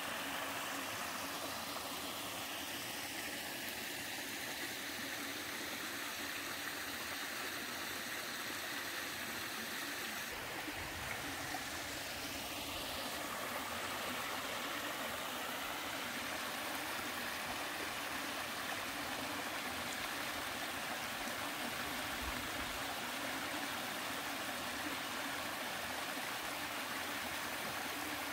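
Three-tiered mountain waterfall pouring steadily into a stream: an even, continuous rush of falling water, with a couple of brief low rumbles.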